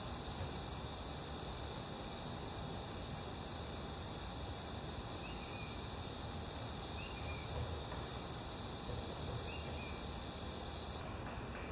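Steady, high-pitched chorus of summer insects, with a few faint short chirps in the middle. It drops away suddenly near the end.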